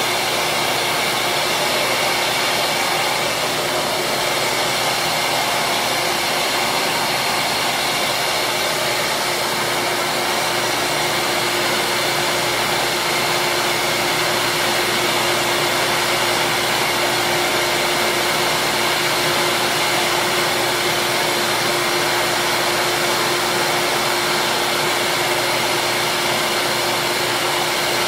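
Small benchtop grinding machine running steadily: a constant motor whir with a steady hum, while small plastic curling-shoe slider pieces are shaped against its wheel.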